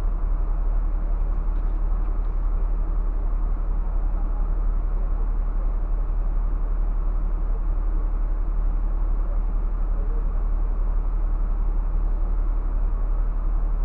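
Scania bus's diesel engine idling, a steady low rumble heard from inside the driver's cab.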